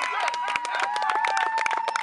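Sideline spectators clapping, with one long held shout or cheer over the claps that drops slightly in pitch near the end.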